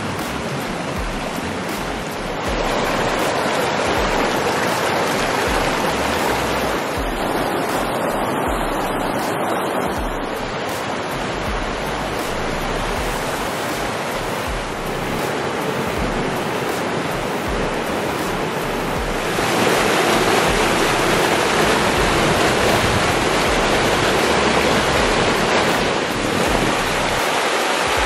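Fast, muddy river water running high and rushing over rocks, a steady dense rush. It gets louder about two seconds in and again about two-thirds of the way through as closer, rougher rapids come into hearing.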